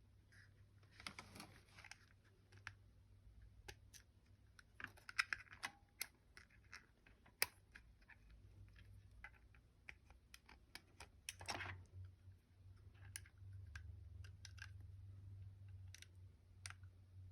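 Scattered small clicks, taps and light scrapes of Glock 29 pistol parts being handled during field-stripping and reassembly, irregular, with a few sharper clicks around the middle, over a faint steady low hum.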